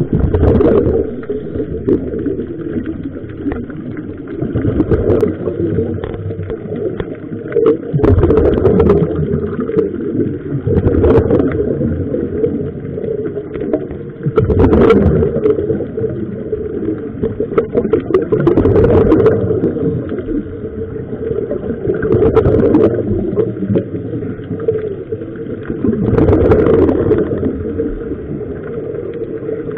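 Underwater sound of scuba divers breathing through regulators: exhaled bubbles gurgle up in louder surges every three to four seconds over a steady underwater rumble.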